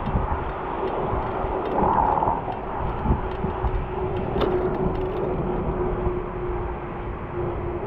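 Wind and road rumble from a moving bicycle's handlebar-level camera, with a steady hum running underneath and a brief swell about two seconds in.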